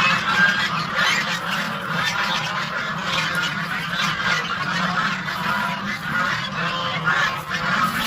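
A flock of domestic geese honking and calling, many birds at once in a continuous overlapping clamour.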